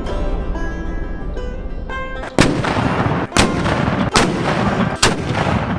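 Music, then four loud black-powder gun blasts about a second apart, each with a trailing echo.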